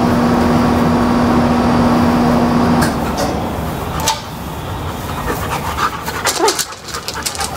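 German Shepherd puppy panting, with a few sharp clicks. For the first three seconds a steady hum with a fixed low tone sits under it and cuts off abruptly.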